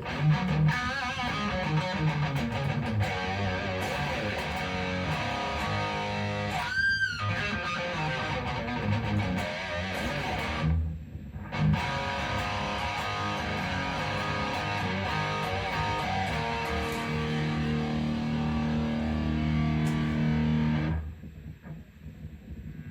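Electric guitar played through a Marshall DSL40CR valve combo amp: chords and notes, with a brief pitch glide about seven seconds in and a short break around eleven seconds. The playing stops about 21 seconds in, leaving a lower background noise from the amp.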